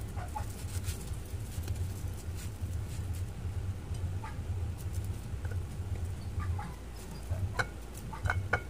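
Hands working a raw, seasoned whole chicken in a plastic tub, stuffing greens into its cavity: soft wet handling noises and scattered light clicks and taps, with several sharper clicks near the end, over a steady low hum.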